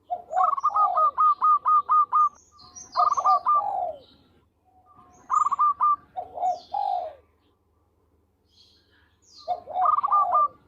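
Zebra dove (perkutut) singing in four bouts of quick repeated cooing notes, each bout a second or two long with short pauses between, and faint high chirps in the gaps.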